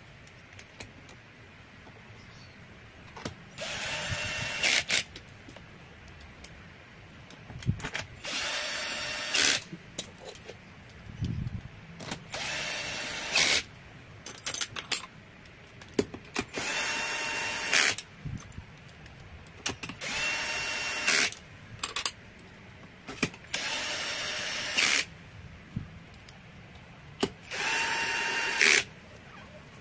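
Cordless drill-driver running the bolts of a scooter's CVT cover one after another: seven short runs of steady motor whine, each lasting a second or so, with small clicks of handling in between.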